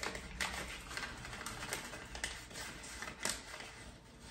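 Light, irregular clicks and taps of a teaspoon against a small baking-powder container while scooping and levelling half a teaspoon, the sharpest tap about three seconds in.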